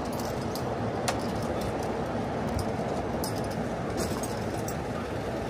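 Steady city street noise: a low, even rumble of traffic with a few faint sharp clicks over it.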